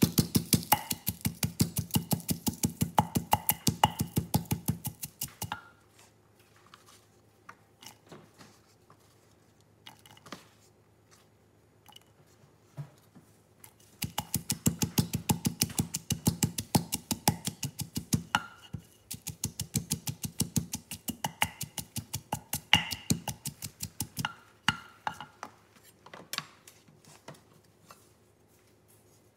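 Wooden pestle pounding in a terracotta mortar: fast, even strikes of about three to four a second in runs of several seconds, broken by spells of scattered lighter knocks and scrapes as the mortar is stirred and refilled.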